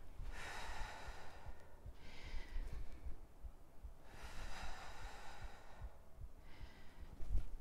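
A woman breathing slowly and deeply into a close microphone, with about four soft rushing breaths, each half a second to a second and a half long. There is a low thump near the end.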